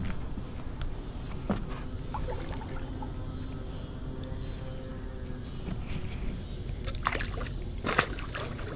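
A released catfish splashing back into the water near the end, with a few knocks beforehand, over a steady high-pitched insect drone.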